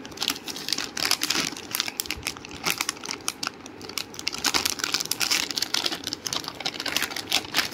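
Packaging crinkling and rustling as stationery items are handled, with many sharp little clicks and taps scattered irregularly throughout.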